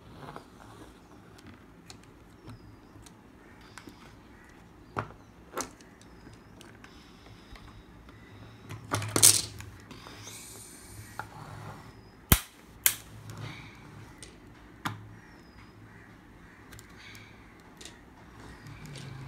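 Plastic toy excavator and interlocking plastic building blocks knocking and clattering on a wooden tabletop as they are moved by hand: scattered light clicks, a louder clatter about nine seconds in, and two sharp knocks about twelve and a half seconds in.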